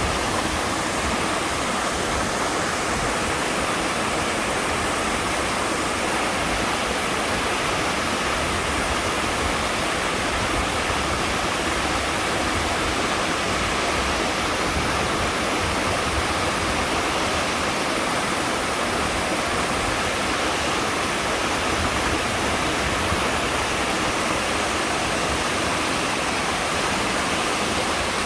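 Waterfall pouring steadily into a pool, a constant rushing of falling water.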